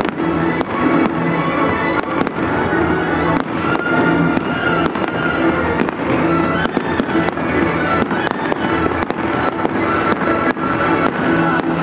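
Fireworks going off in a rapid, irregular string of sharp bangs and crackles, a few each second, over loud music playing throughout.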